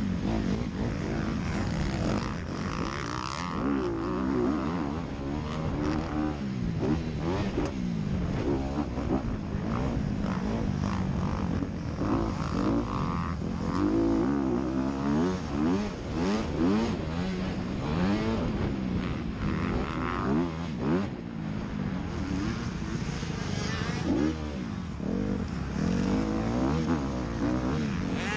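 Honda CRF250R's single-cylinder four-stroke engine racing over dirt, its pitch rising and falling again and again as the throttle opens and closes through the gears, with wind noise on the on-bike camera's microphone.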